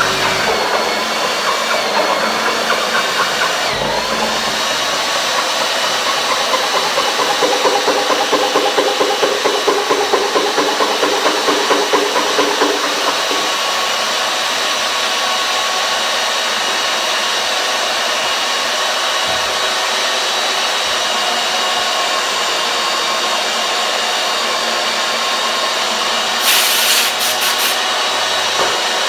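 Magnetic drill press running steadily with its bit fed into a steel beam, a steady motor whine under the cutting noise. For several seconds in the first half the sound pulses about three times a second as the cutter bites, and a short burst of hiss comes near the end.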